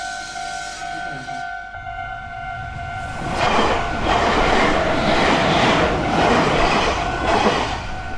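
A Japanese level-crossing alarm rings its repeating 'kan-kan' tone. From about three seconds in, a Meitetsu electric train passes with a loud rushing rumble and wheel clatter that nearly drowns out the alarm, easing off near the end.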